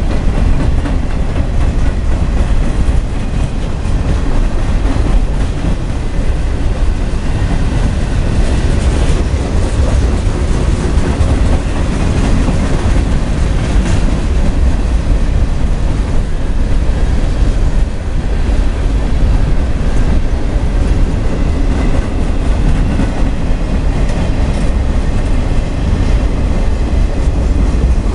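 Freight train's boxcars rolling past at close range: steady, unbroken wheel-on-rail noise with a clattering of the wheels over the track.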